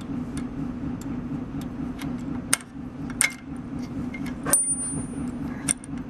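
A few sharp metal clicks and clinks, spread over several seconds, as the lower die is set into the track of a crimp applicator and its die screw is worked with a hex key. A steady low hum runs underneath.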